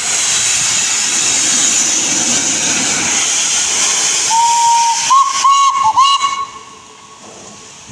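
The Flying Scotsman steam locomotive gives off a loud, steady hiss of steam from its open cylinder drain cocks as it gets under way. About four seconds in its whistle sounds: a held note, a few short toots, and a final held note that outlasts the hiss as it dies away.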